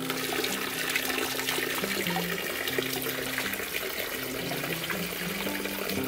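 Water pouring steadily from a jar spout onto a broken pot and splashing down into a large clay vat: a continuous splashing trickle from a small garden water feature.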